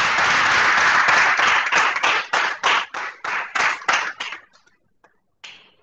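Audience applauding: dense clapping that thins out about two seconds in to scattered single claps, about three a second, and dies away.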